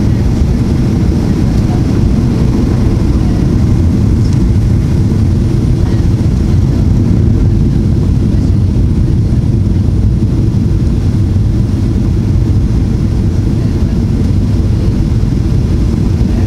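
Steady cabin noise inside a Boeing 737-800 on approach: an even, unchanging low rumble from the CFM56-7B engines and the airflow past the fuselage.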